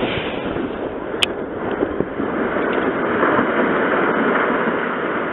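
Steady loud roar in the seconds after a house explosion, heard through a doorbell camera's microphone, with one sharp crack about a second in.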